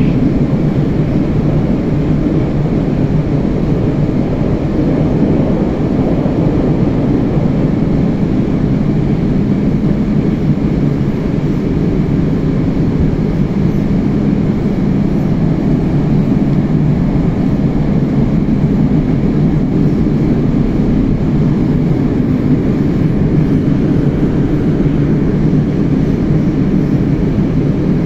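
Moscow Metro 81-765 "Moskva-2019" train running between stations, heard from inside the carriage: a steady, low running noise of wheels and traction drive that holds even throughout.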